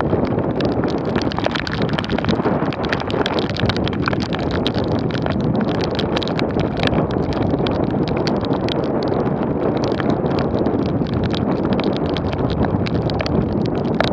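Cycling in the rain, heard through a bike-mounted action camera: a steady rushing noise of wind and wet road, with many sharp, irregular taps throughout.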